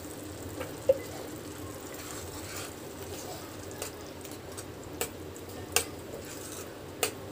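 Steel ladle stirring chana dal in a pan, with several sharp clicks where it knocks against the pan's side.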